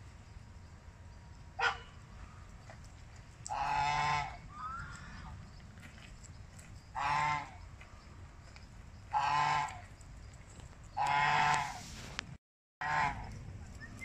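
Domestic geese honking: a short call, then a series of loud, drawn-out honks every two to three seconds.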